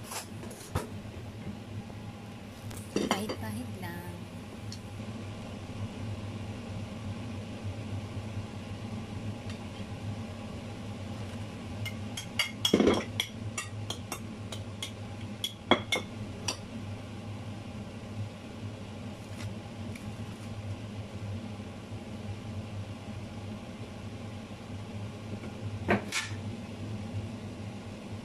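A metal spoon clinking and scraping against a plate while spooning teriyaki sauce over chicken, in a few short clusters of clinks, the loudest about halfway through, over a steady low hum.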